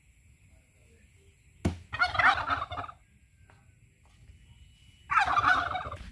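A turkey gobbling twice, about three seconds apart, each a loud rattling burst about a second long, with a sharp click just before the first, over a steady high buzz.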